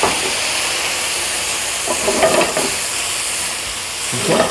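Food sizzling and steaming in a hot sauté pan just after white wine went in, a steady hiss, with brief clatters of the pan or a utensil about two seconds in and again near the end.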